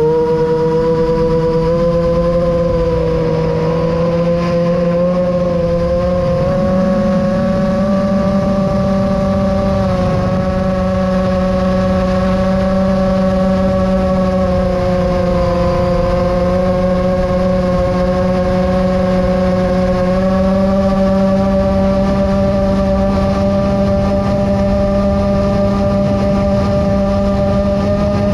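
The brushless motors and propellers of an iFlight Chimera 7 FPV quadcopter whine steadily at fast cruise, heard through its onboard GoPro. Their pitch wavers slightly up and down with throttle, over a rush of wind on the microphone.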